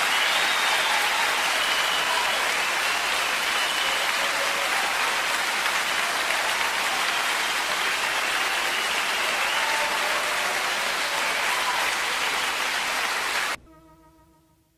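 Crowd cheering and applause: dense, steady clapping with faint whistles and shouts over it, cut off abruptly near the end.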